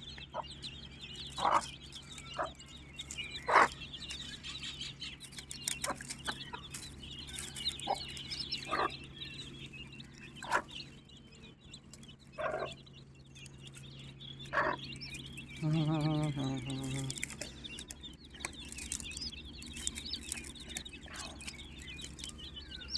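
Aseel hen clucking at irregular intervals over the constant high peeping of a large brood of young chicks, with one longer drawn-out call about two-thirds of the way through. A steady low hum runs underneath.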